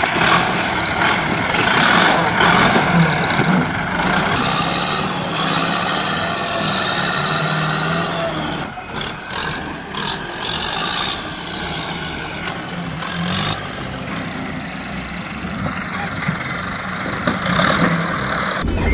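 Engine of heavy machinery running steadily under work, with a brief break about nine seconds in.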